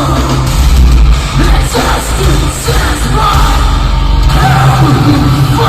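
Nu-metal band playing live, loud and without a break: heavy low-end guitars, bass and drums under yelled vocals.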